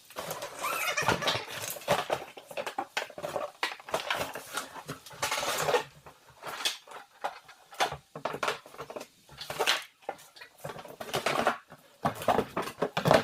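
Irregular clattering, knocking and rustling of snow blower parts and packaging being handled during assembly, with a few longer rustling stretches.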